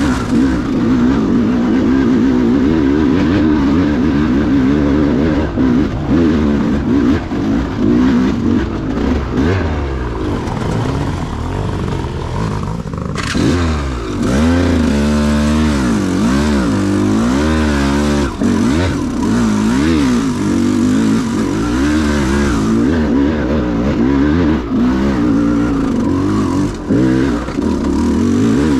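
KTM 200 XC-W two-stroke dirt bike engine being ridden, its revs constantly rising and falling with the throttle. About halfway through it revs up and down quickly several times in a row.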